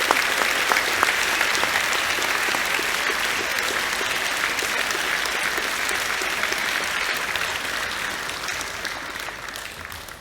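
A large audience in a hall applauding and clapping, already at full level as it begins and dying away over the last couple of seconds.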